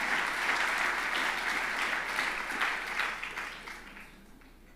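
Audience applauding, fading away over the last second or so.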